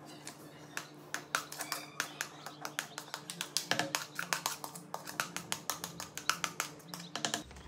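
Plastic bowl tapping and scraping against the rim of a plastic blender jar as moist corn flakes are tipped in: many quick, irregular light clicks and knocks over a faint steady hum.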